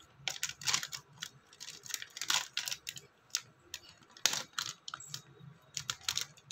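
Foil-lined plastic dog-treat pouch (Pedigree Meat Jerky) crinkling and tearing as it is pulled open by hand: a string of irregular crackles and snaps.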